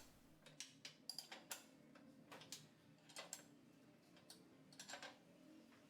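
Faint, irregular short clicks, about a dozen scattered over several seconds.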